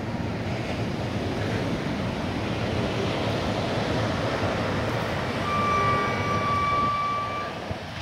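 Sea surf washing and breaking, a steady rush of wave noise. About five and a half seconds in, a high steady tone sounds for about two seconds over the surf.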